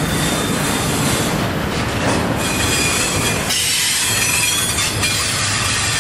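Loaded double-stack intermodal well cars rolling past, a steady rumble of steel wheels on rail. About halfway through, high-pitched wheel squeal rises over the rumble for a couple of seconds.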